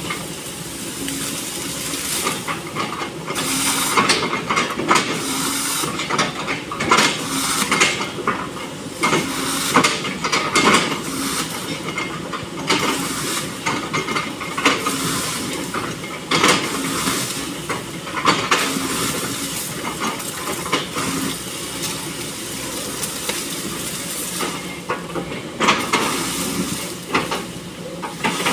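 SANY SY215C hydraulic excavator working, its engine and hydraulics running under load, with repeated irregular crunches and metallic clanks as the bucket chops felled oil palm trunks into pieces.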